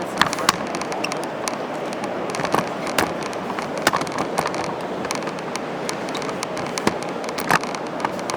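Steady rush of river water, with scattered sharp splashes and cracks breaking through it at irregular moments.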